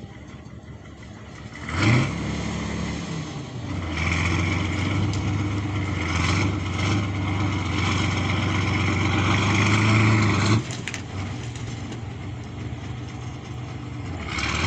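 K-701 Kirovets tractor's diesel engine revving up sharply about two seconds in, then running hard at steady high revs under load. About ten and a half seconds in it drops back suddenly to a lower, quieter running note.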